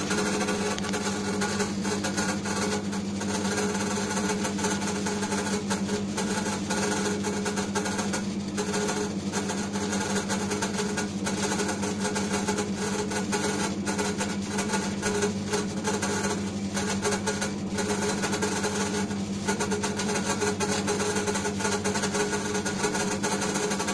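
Electric dough-kneading machine running with a steady motor hum, its hook working flour and water into bread dough.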